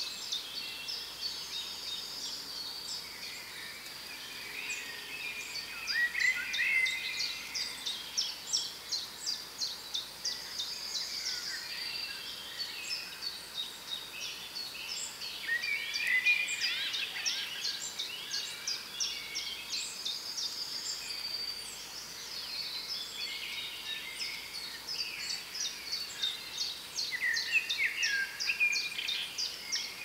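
Several songbirds singing at once in a forest chorus: overlapping varied phrases and glides, with quick runs of high, rapidly repeated notes above them.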